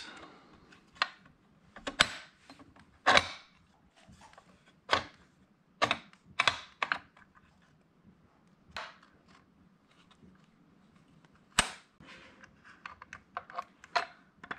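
Sharp metal-on-metal knocks and clicks, irregular and roughly one a second, from an NP435 transmission's shift fork and shift rails being worked into place in the shift cover.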